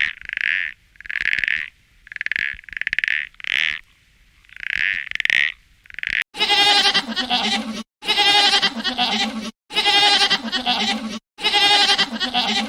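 Animal calls: first a string of short, high-pitched calls. About six seconds in, these give way to long, pitched calls repeated roughly every second and a half.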